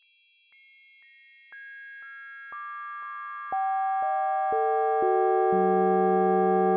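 Synthesized spectrum of an old church bell's timbre. Its partials enter one by one as steady pure tones, a new one about every half second, from the highest down to the lowest. The sound grows louder until the deep lowest tone, the loudest, enters near the end and the whole chord holds.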